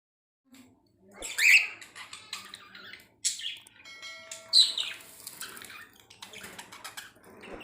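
Pet budgerigars chirping and squawking in a string of short, sharp calls that start about half a second in, loudest about a second and a half in and again near the middle.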